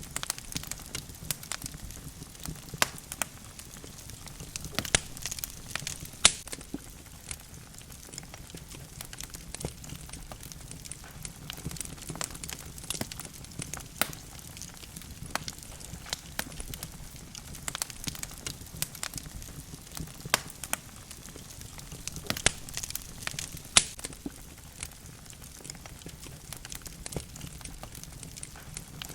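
Wood logs burning in a fireplace, crackling and popping irregularly over a low steady rumble of the flames, with a few sharper, louder pops.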